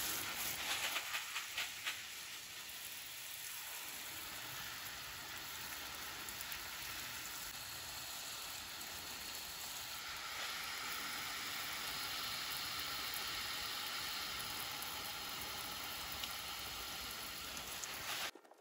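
Garden hose spraying water onto potted plants: a steady hiss of spray with water splashing on leaves and soil. It stops suddenly near the end.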